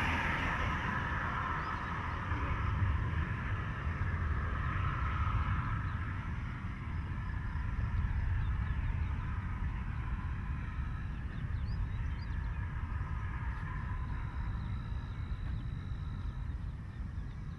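Wind rumbling and buffeting on the microphone in open country, with a steady hazy background hiss. A few faint chirps come through about two-thirds of the way in, and a thin, steady high tone starts near the end.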